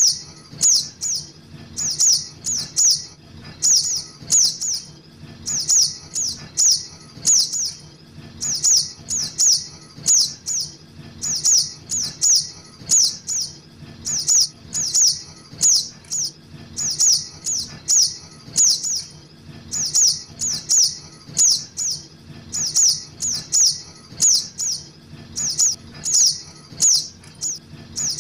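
Juvenile sogok ontong birds chirping, as played for a bird lure: clusters of two or three sharp, high-pitched chirps repeated about once a second.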